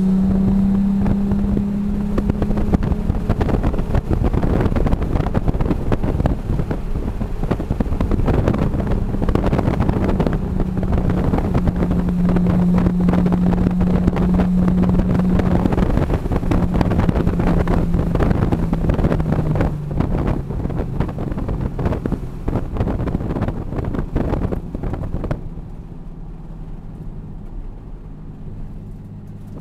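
Inside the cabin of a 2013 Nissan 370Z Nismo: its 3.7-litre V6 runs at a steady cruise over wind and road noise. About twenty seconds in, the engine note drops and the sound grows quieter as the car slows down.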